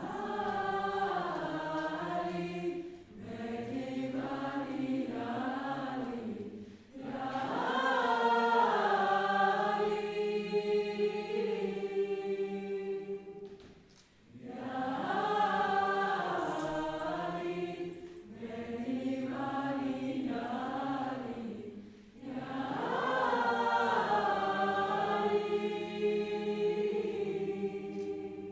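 A choir of many voices singing a slow melody together in phrases of a few seconds, with short breaks between phrases, fading out at the end.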